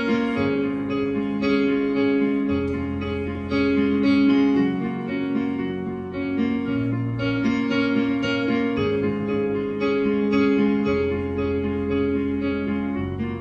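Instrumental music: a slow repeating melody over bass notes that change every second or two.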